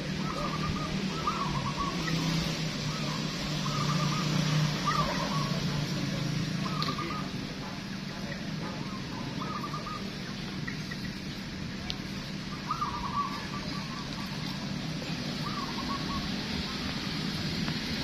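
Several zebra doves (perkutut) cooing, with short repeated phrases from different birds overlapping. A low steady hum runs under them and fades after about six seconds.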